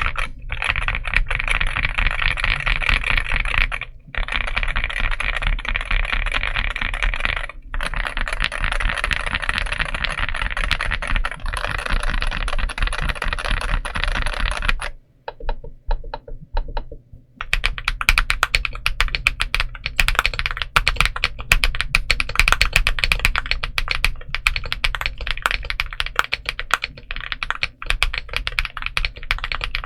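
Fast, continuous typing on a Monsgeek M1V5 aluminium 75% mechanical keyboard, as a typing sound test. It stops for about two seconds halfway through, then resumes as crisper, more separate key strikes.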